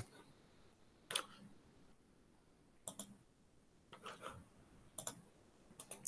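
Computer mouse and keyboard clicks: about six short, sharp clicks spread a second or so apart, some in close pairs.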